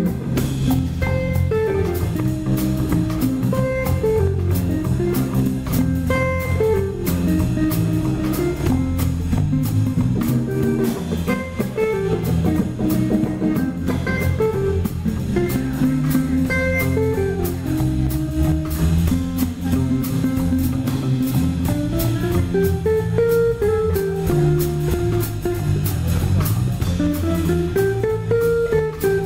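Live jazz combo playing: an electric guitar carries a winding melody over electric bass lines and a drum kit keeping steady time on the cymbals.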